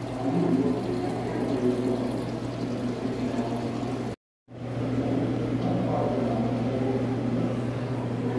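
Aquarium hall ambience: a steady low hum of tank equipment under an indistinct background murmur. The sound cuts out for a moment about four seconds in, then resumes the same.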